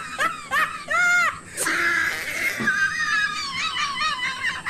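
A high-pitched, voice-like squealing in quick rising and falling pitch glides, with a longer held stretch about two seconds in and a run of short chirps near the end.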